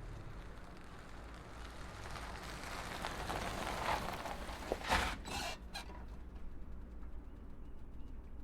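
SUV engine and tyres with a low steady rumble; a noisy rush builds from about two seconds in, peaks with a sharp knock about five seconds in and a few brief rattles, then falls back to the low rumble.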